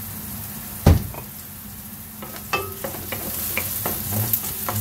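Chopped onion and garlic sizzling in hot oil in a frying pan. There is a sharp knock about a second in, then a wooden spatula stirs them, scraping and clicking against the pan, toward the end.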